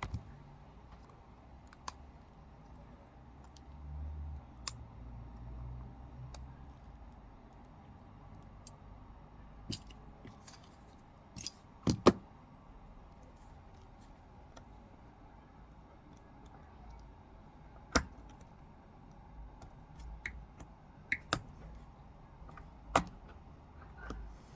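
Scattered sharp clicks and light taps of small hand tools against a phone and the bench, as work on an iPhone 13 Pro's broken rear camera glass begins, with the sharpest clicks at about 12, 18 and 23 seconds. A faint low rumble runs for a few seconds early on.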